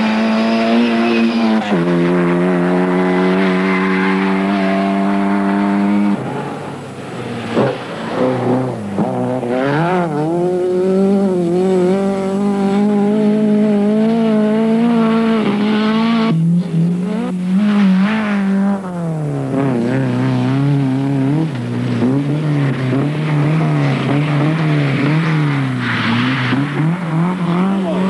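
Rally car engines driven hard on a loose dirt special stage. They hold high revs, then drop with gear changes and rise and fall repeatedly through the second half, with tyre noise from the wheels working the loose surface.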